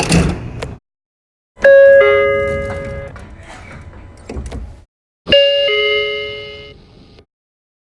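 Eidan subway train door chime: a two-note descending ding-dong sounding twice, each time followed by train rumble and cut off abruptly. A short burst of noise comes at the very start.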